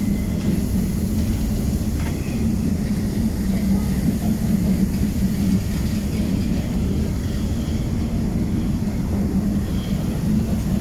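High Speed Train (InterCity 125) Mark 3 coaches rolling slowly past as the train arrives, under a steady low engine drone.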